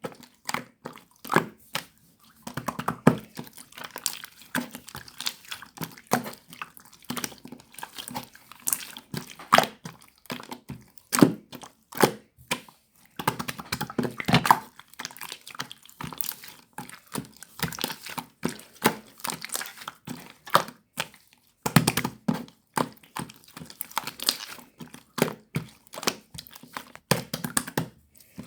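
Bead slime being squeezed and pressed by hand, making irregular crunchy clicks and pops.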